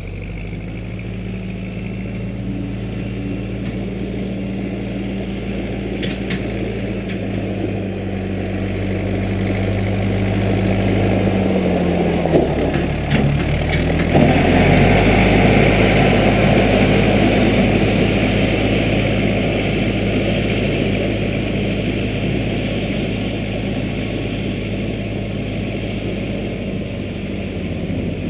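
Case 580B backhoe's engine running steadily; about halfway through its note sags briefly, then picks back up, and it gets a little louder for a while.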